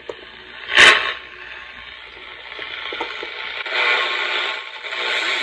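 Crown HT 460 AM transistor radio playing through its small speaker, hissing with static between stations, its audio output restored by a replaced capacitor. About a second in there is one loud, sharp crackle, and the static grows louder from about two-thirds of the way through.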